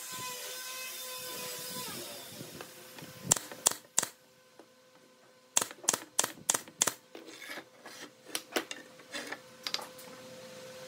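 Pneumatic brad nailer firing a series of sharp shots as nails are driven into carved hardwood panels. There are three shots about three seconds in, then a faster run of about a dozen, roughly three a second.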